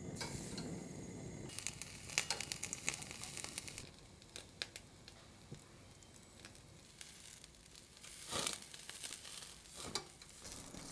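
Metal skewers of chicken and green onion clinking onto the wire grill rack of a portable gas stove, with crackling and sizzling as the meat starts to cook over the flame. The clicks and crackles come thickly for the first few seconds, ease off, then flare up twice near the end.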